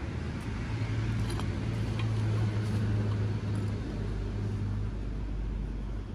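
Car engine running steadily, a low hum that eases slightly about five seconds in, with a few faint clicks.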